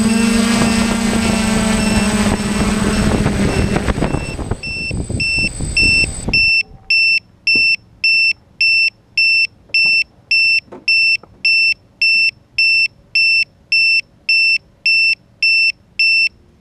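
A loud steady sound with a hum fades out over the first six seconds. Then the hexacopter's onboard electronic beeper sounds a short, high beep about every 0.6 seconds, around sixteen times, with the craft down on the ground.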